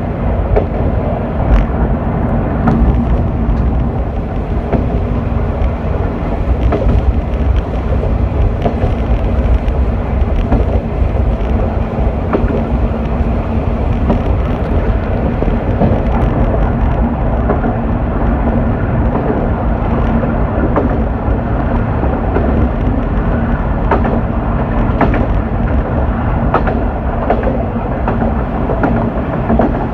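Diesel railcar running along the track: a steady engine hum over low wheel-and-rail rumble, with occasional clicks from the wheels.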